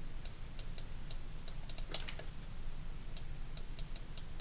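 Light, irregular clicking of a computer mouse, many clicks in quick succession, over a faint low steady hum.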